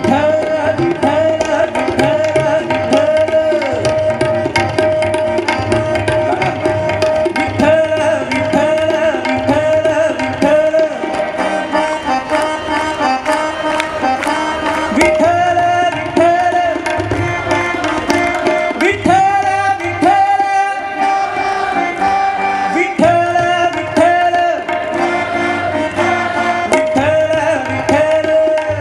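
Hindustani classical vocal performance with tabla accompaniment: a male singer holding and bending long notes over a steady flow of tabla strokes.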